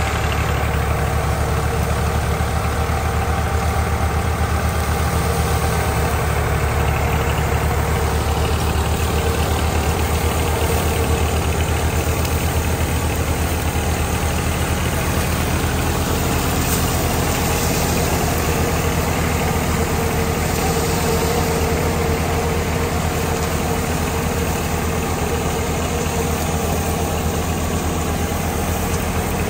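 Tractor diesel engine running steadily under load as it belt-drives a crop thresher, with the thresher drum's steady hum over the engine note.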